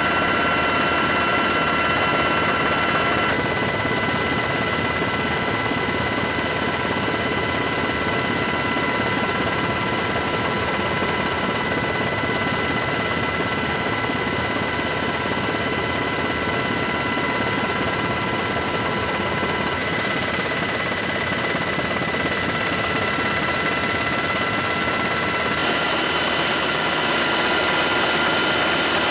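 Helicopter in flight: a steady, dense rotor and engine noise with several high, steady whining tones on top. The sound shifts abruptly a few seconds in, and again about two-thirds of the way through and near the end.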